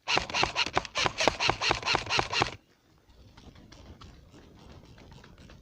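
Airsoft gun firing one long full-auto burst of rapid clicking shots for about two and a half seconds, stopping suddenly. After it comes faint rustling and movement.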